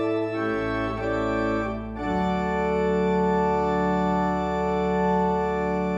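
Church organ playing the closing voluntary: sustained chords over a low pedal note, moving about two seconds in to a long held chord.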